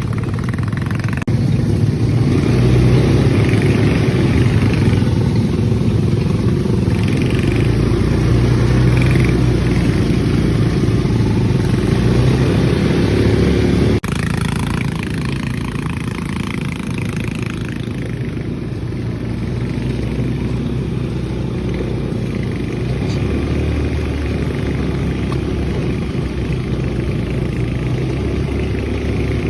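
ATV engines running while riding a trail, a steady low rumble that swells and eases. It breaks off abruptly about halfway and picks up again a little quieter.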